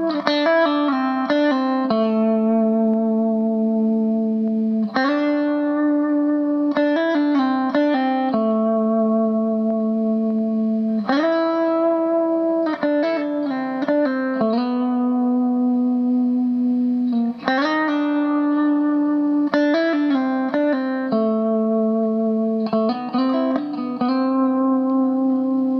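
Electric guitar played through a Behringer compressor pedal: chords picked note by note and then left ringing with long, even sustain. A similar phrase starts again about every six seconds.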